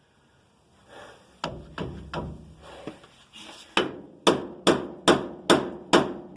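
Hammer striking steel: a few scattered taps, then from about halfway a steady run of hard, ringing blows, a little over two a second.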